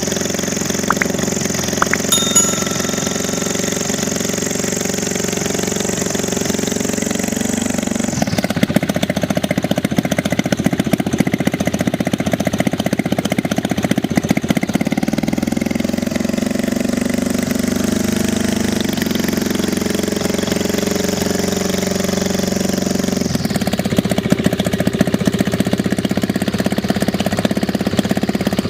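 Engine of a homemade ultralight aircraft running with its propeller turning, the propeller oversized for the engine so that it is hard to turn and gives little thrust. The engine note shifts: a high whine drops about eight seconds in, returns around nineteen seconds and drops again near twenty-three seconds.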